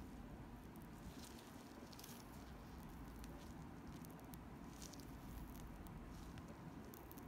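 Faint crinkling and squishing of a plastic piping bag being squeezed to pipe buttercream petals, as scattered soft crackles over a low steady room rumble.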